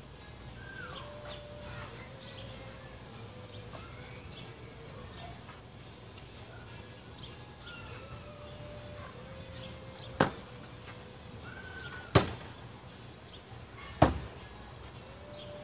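Three Bill Page Bullseye Seeker throwing knives, thrown with one spin, sticking into a wooden target one after another about two seconds apart, starting about ten seconds in. Birds call faintly in the background.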